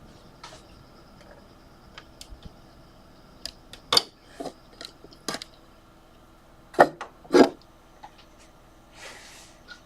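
Computer case fans and their cables being handled and swapped: a scatter of sharp plastic clicks and knocks, the loudest about four seconds in and two close together near seven seconds, with a brief rustle near the end. A faint steady fan hum runs underneath.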